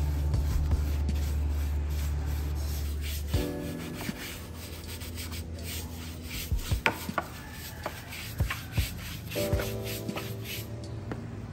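A bristle detailing brush scrubbing a soapy engine cover in quick repeated strokes, with background music underneath.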